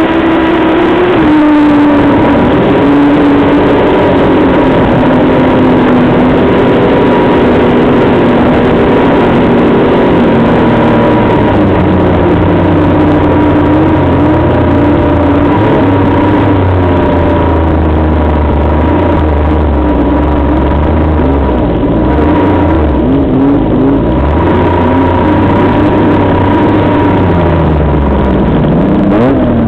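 Snowmobile engine running at speed, its pitch rising and falling with the throttle, over a dense rush of noise, with a steady whine throughout and a heavier low rumble from about halfway in.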